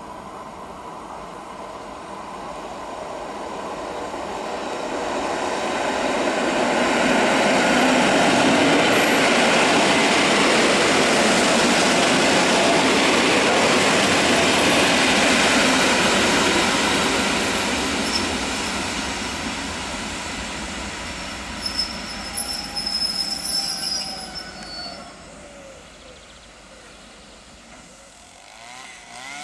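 PolRegio EN57 electric multiple unit rolling into the station and past close by, a rumble of wheels on rail that swells to a peak and then fades as it slows. Short high wheel or brake squeals come several times near the end as it draws to a stop.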